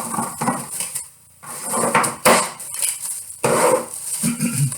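Cling film crinkling and rustling as it is pulled and stretched over a bowl, with a sharp knock about two seconds in.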